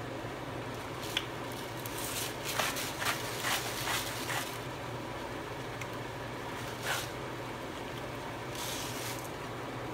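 Salt being shaken from a salt container over a pot: a run of quick, dry rattling ticks from about two seconds in, lasting a couple of seconds, with a few stray clicks later, over a steady low hum.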